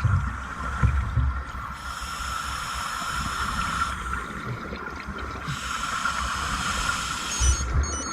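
Scuba diver breathing through a regulator underwater: two long rushes of exhaled bubbles, each about two seconds, one about two seconds in and one just past the midpoint, over low rumbling thuds.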